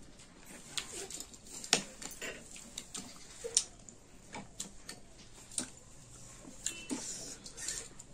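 Metal spoon clinking and scraping against a glass bowl as food is stirred and mixed, a string of irregular clicks with the sharpest about two and three and a half seconds in.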